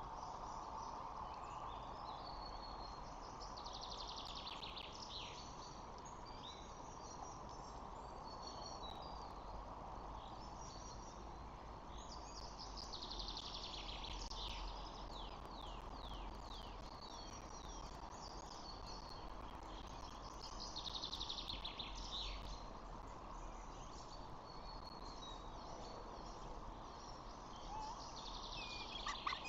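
A small songbird singing a fast, descending trilled phrase four times, about every eight seconds, over a steady outdoor hiss from the nest camera's microphone.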